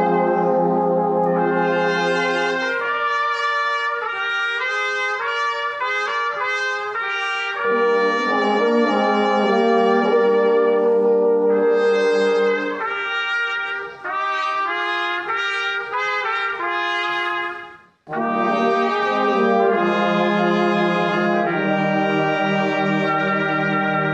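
Brass band of trumpets, horns, euphoniums and tubas playing a slow hymn in sustained chords. The music breaks off briefly about eighteen seconds in, then the next phrase begins.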